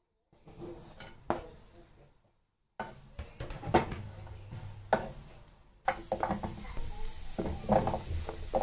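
Wooden spoon knocking and scraping against a nonstick frying pan while stirring garlic, onion and ginger in oil, with several sharp knocks and brief silences between stretches. From about six seconds in, cubes of kalabasa (squash) clatter into the pan over a steady hiss.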